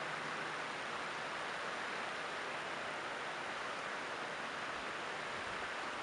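Steady rush of creek water spilling over a low rock ledge.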